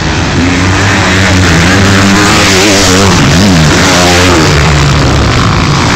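Several motocross bikes revving as they race over the jumps, their engine notes rising and falling and crossing each other, over a loud steady rushing haze.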